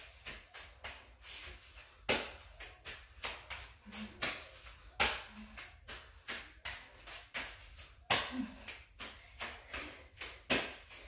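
Hands and forearms tapping and slapping on a rubber gym floor mat in a quick, irregular series, a few strokes louder than the rest, as a person moves up and down between forearm and hand plank.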